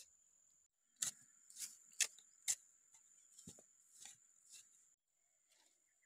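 A series of about eight sharp knocks, a tool or hands striking and digging into dry earth, each roughly half a second apart. An insect keeps up a steady high-pitched buzz underneath.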